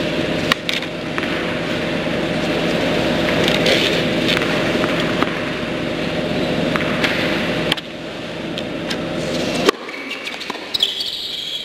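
A steady buzzing hum with a low, even tone runs until it cuts off abruptly near the end. After it stops, tennis balls are struck and shoes squeak on the indoor hard court during a rally.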